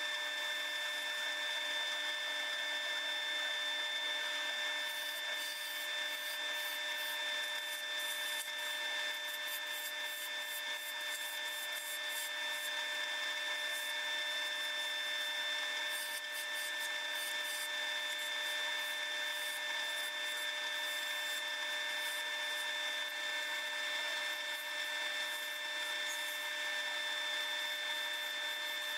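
Wood lathe spinning a hickory bowl while a hand-held turning tool cuts away cured epoxy and wood, sped up fivefold, so it comes out as a steady high-pitched whine. Rapid fine scratchy ticks join in from about five seconds in.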